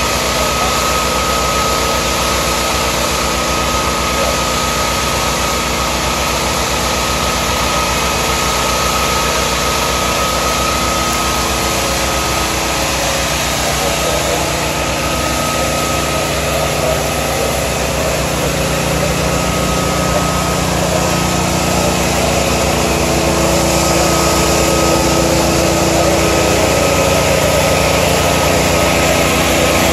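Gas-engine ventilation fan running steadily, with an even high whine over the engine, as it blows smoke out of the burned building. It grows slightly louder in the last third.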